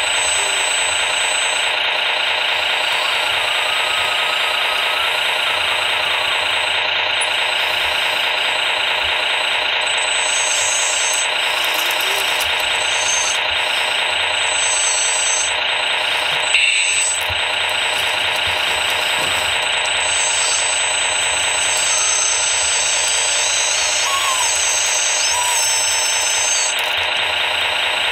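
Radio-controlled 1/14-scale construction model running with a steady mechanical sound, with a single short knock a little past halfway.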